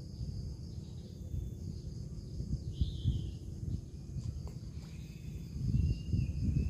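Outdoor ambience of insects making a steady faint high hum, with a short bird chirp about three seconds in and thin high calls later, over a restless low rumbling noise; a faint click comes a little after four seconds.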